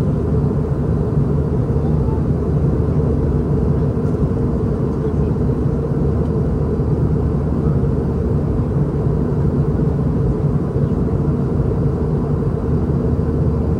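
Steady cabin drone of a Boeing 717-200 airliner: its two rear-mounted Rolls-Royce BR715 turbofans and the airflow give an even, low rushing noise with a few steady hums underneath, unchanging throughout.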